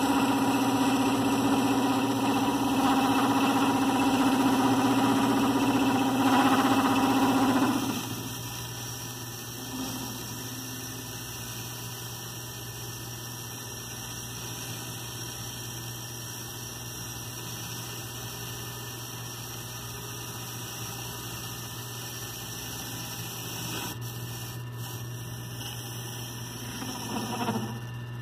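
Weidenhoff antique metal lathe making a test cut: a loud steady pitched whine for about the first eight seconds, then the lathe runs on more quietly with a steady motor hum, swelling briefly again near the end.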